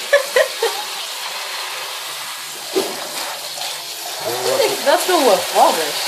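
Tap water running steadily into a stainless steel sink and splashing over a wet African grey parrot being rinsed by hand. Short voice-like chatter sounds in the first second, and a quick run of rising and falling voice-like sounds from about four seconds in.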